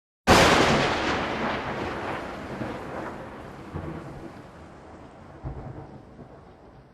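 A thunderclap: a sudden sharp crack about a quarter second in, then a rumble that rolls on with a few smaller swells and slowly fades away.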